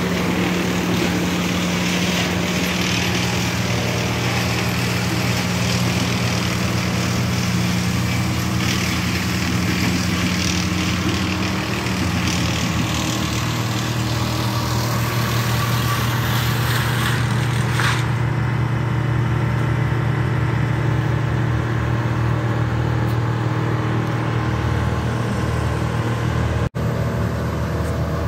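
Heavy diesel engine of tree-work machinery running steadily with a deep drone, its pitch shifting a little a few times. The sound drops out for an instant near the end.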